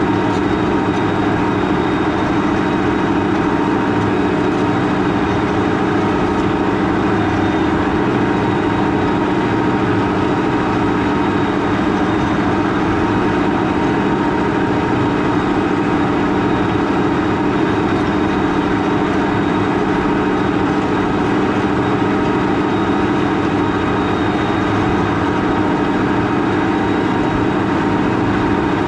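Large farm tractor's diesel engine running steadily at constant revs, with a low drone and a few steady whining tones over it.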